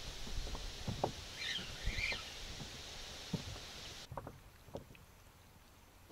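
Water lapping and knocking against the hull of an inflatable boat in a steady wind hiss, with two short high chirps a second and a half to two seconds in. About four seconds in it turns quieter, with only an occasional knock.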